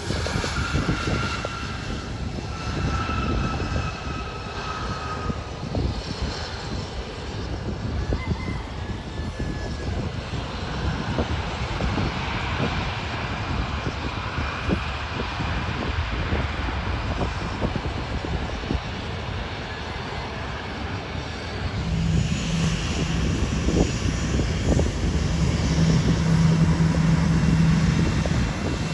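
Aircraft engine noise: a steady rush with low rumble. About three quarters of the way through it grows louder and a steady low drone sets in.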